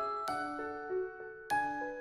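Background music of gently struck, ringing notes, with new chords starting twice, a little over a second apart, each fading away.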